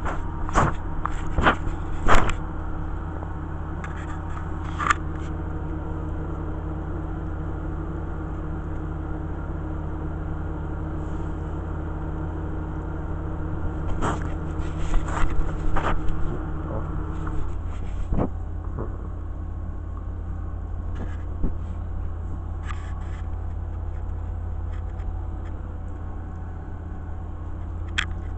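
Steady low hum with scattered scrapes and knocks from a handheld camera being moved and bumped close to the puppies, clustered near the start and around the middle. A steady tone within the hum cuts out a little past halfway.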